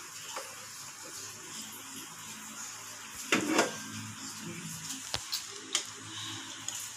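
A metal frying pan scraping and clattering as it is lifted off a portable gas stove's grate about halfway through, followed by a few sharp clicks of chopsticks against the pan as spaghetti is served out, over a steady low hum.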